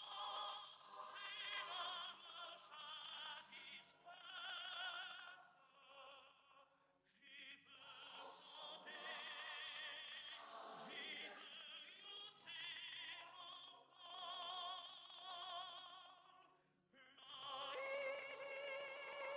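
Swiss folk yodelling: a man sings with a mixed choir, in long held phrases with a wide vibrato. There are brief pauses for breath about seven and seventeen seconds in.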